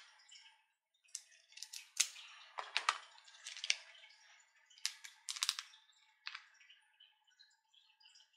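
Irregular sharp clicks and crinkles of a small plastic glitter packet being handled and tapped, as glitter is sprinkled onto slime. They come a dozen or so times, most sharply two to three seconds in, and thin out towards the end.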